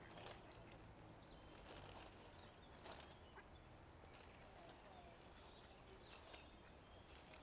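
Near silence: faint outdoor ambience with a few soft scattered ticks.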